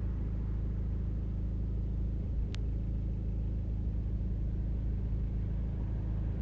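Steady low background rumble with a single sharp click about two and a half seconds in.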